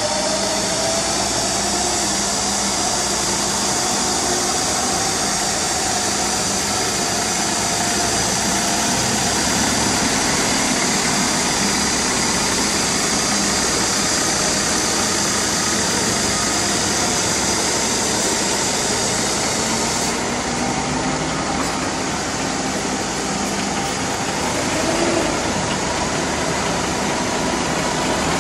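Truck engines of new garbage compactor trucks running as the trucks pull past one after another, with a steady hiss over them that eases about two-thirds of the way through.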